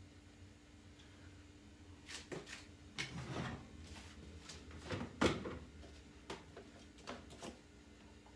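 Irregular knocks and clatter from laundry being handled at a washing machine, with the sharpest knock about five seconds in.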